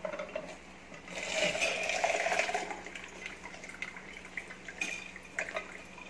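Kalsi manual lever-press juicer squeezing a half pomegranate: a wet, crunching squish of about two seconds as the cone presses down and the juice is forced out into the cup, followed by scattered clicks and knocks from the lever and press.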